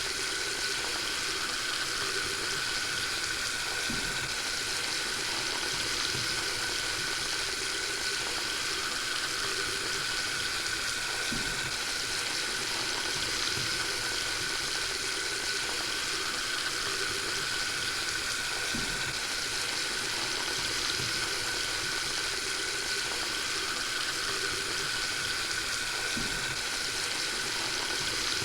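Water tap running steadily into a sink, an even rushing hiss of the water stream with no breaks.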